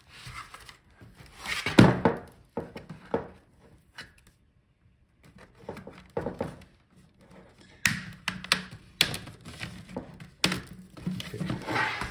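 Bottom case of a ThinkPad E14 Gen 2 laptop being pried off the palmrest by hand, its edge coming loose in a series of clicks and knocks. The loudest knock comes about two seconds in, and a denser run of clicks follows from about eight seconds on.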